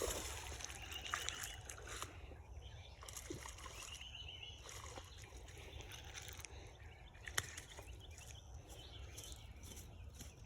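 Outdoor ambience with a steady low rumble, two short bird chirps about one and four and a half seconds in, and scattered small clicks and light water sloshing, with one sharper click past the middle.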